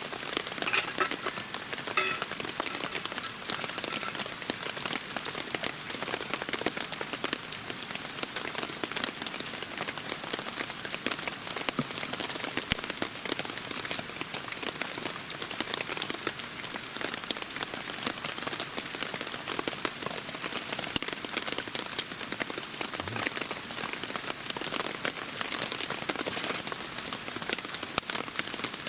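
Steady rain falling, a dense even patter of drops with a few sharper individual drop hits.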